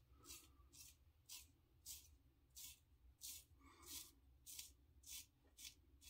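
Faint, quick scraping strokes of a GEM Push Button safety razor with a Personna Lab Blue double-edge blade cutting stubble through shaving lather, about ten short strokes, one every half second or so.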